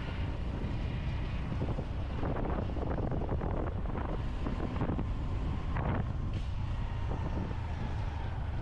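Wind buffeting the microphone on a moving motorbike: a steady low rumble of wind and road noise with the ride's traffic underneath.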